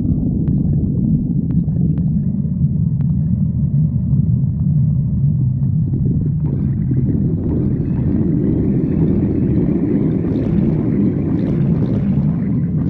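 Stomach growling: a long, loud, continuous low rumble that turns brighter and more gurgling about halfway through.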